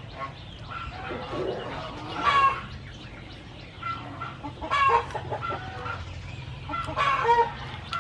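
Chickens clucking, with three louder bursts about two and a half seconds apart.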